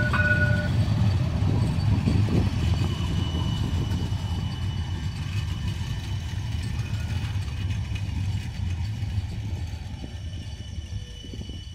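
Coupled pair of Siemens Avanto tram-trains running past on the rails: a steady low rumble with a faint high electric whine, slowly fading as the train moves away. A short high tone sounds right at the start.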